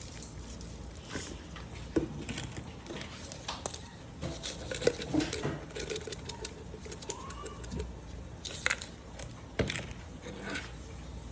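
Kitchen handling noises while seasoning food: scattered clicks, taps and rustles from spice containers being opened, handled and shaken, with a few louder knocks.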